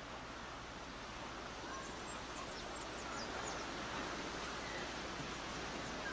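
Steady outdoor ambient hiss, with a few faint, short, high bird chirps about two to three seconds in.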